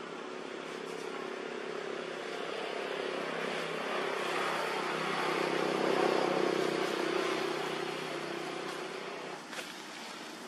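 A motor vehicle's engine running, growing louder toward the middle and fading again.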